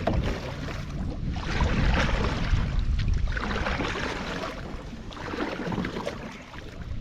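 Wind buffeting the microphone, a low rumble that swells and fades, over water sloshing against a kayak.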